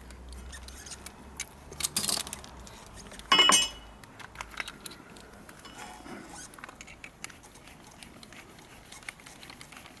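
Small metallic clicks and clinks of a socket ratchet and extension being worked on the bolts of a Yamaha YBR 250 front brake caliper, with one louder, brief metal clatter about three and a half seconds in.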